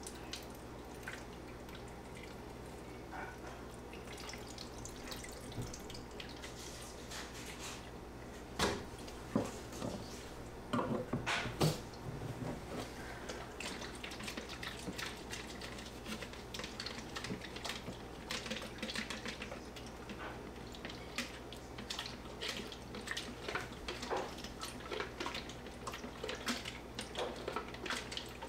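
Photographic chemical poured from a plastic jug into a plastic film developing tank, with trickling and dripping, then knocks and clatters of the plastic tank and its cap being handled, loudest about nine to twelve seconds in. A steady low hum runs underneath.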